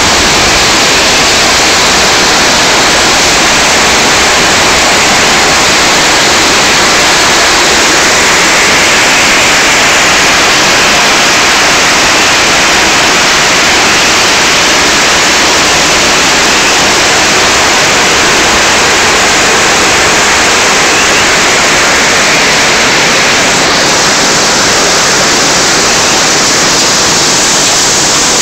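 Heavy hail mixed with rain pelting down, a loud, steady hiss of hailstones striking the ground, plants and surfaces.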